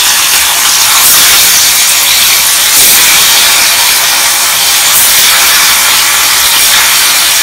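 Marinated anchovies deep-frying in hot oil in an iron kadai: a steady sizzle with fine crackling throughout.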